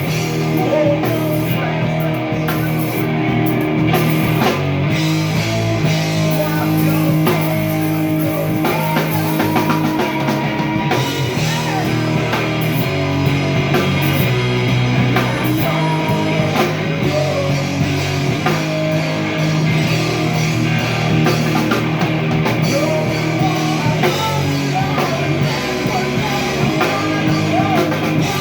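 Live rock band playing a song with electric guitar and drum kit, loud and continuous.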